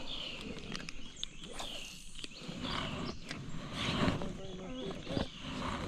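A bird repeating a short, falling call about once a second, over low background noise.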